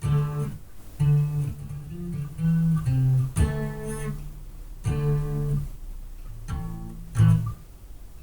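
Electric bass guitar played through a bass amp and cabinet, a riff of single plucked notes one after another, heard through a webcam microphone across the room.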